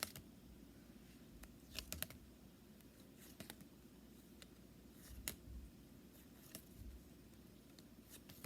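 Pokémon trading cards being handled and slid one by one from a freshly opened pack: a few faint, irregular card flicks and clicks over a low room hum.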